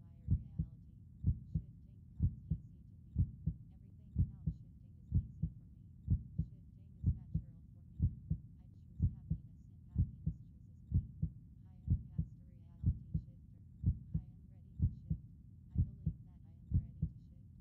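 Recorded heartbeat: a steady double thump, lub-dub, about once a second.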